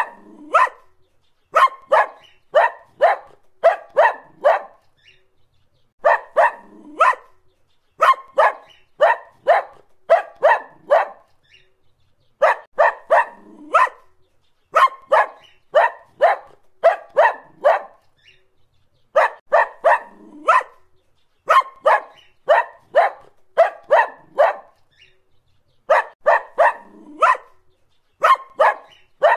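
Dog barking in quick runs of several sharp barks, about two to three a second, with short pauses of about a second between runs.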